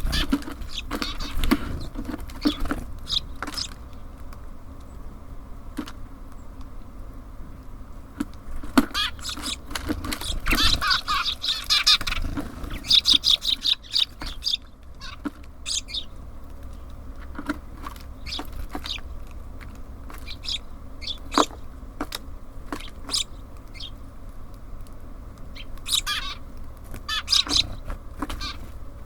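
Small songbirds at a feeder chirping in short clusters of high notes, with many sharp taps scattered through, over a steady low rumble.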